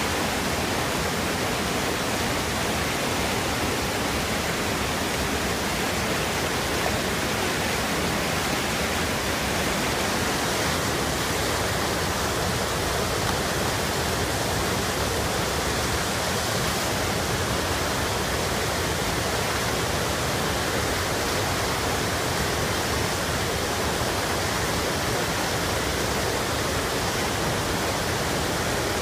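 Waterfall and whitewater rapids rushing with a loud, steady, even noise and no breaks.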